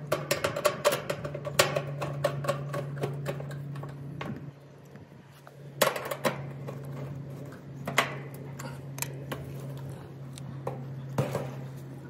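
Screwdriver driving the sheet-metal screws of an outdoor air-conditioner condenser's access panel: quick metallic clicks and scrapes for the first few seconds, then a few separate clinks. A steady low hum runs underneath.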